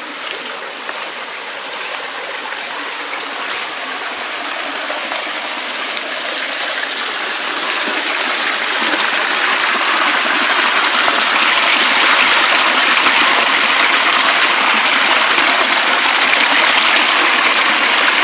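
Small rocky stream rushing and splashing over stones, growing louder over the first ten seconds and then holding steady. For the first few seconds, light rustles and footsteps through grass sound over the water.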